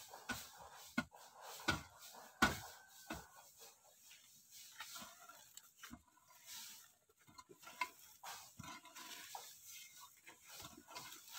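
A hand hoe chopping into packed earth: about five sharp strikes in the first three seconds, then softer scraping and scattered knocks as loose soil is dragged.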